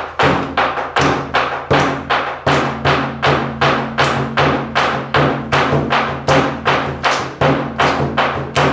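Drum beaten in a steady, even rhythm of about three strokes a second, starting on the cue for the take.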